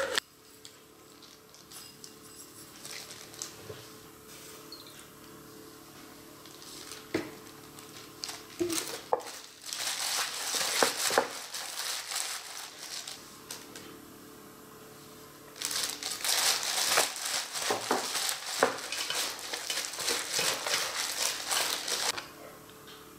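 Plastic-gloved hand tossing and squeezing gulfweed and radish strips in a stainless steel bowl, mixing a seasoned seaweed salad: a crinkling rustle in two spells, the first about ten seconds in and a longer one from about sixteen seconds, with quieter handling and a few clicks before.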